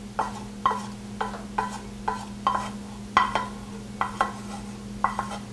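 Spatula scraping melted chocolate, peanut butter and butter out of a tilted nonstick saucepan into a stainless steel bowl of Chex cereal. There are short scrapes and taps, about two to three a second, over a steady low hum.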